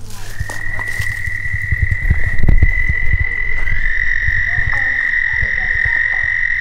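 A steady, high-pitched trilling call chorus of small animals, with a higher overtone joining about four seconds in. Under it run irregular low knocks and rumbles, loudest about two and a half seconds in.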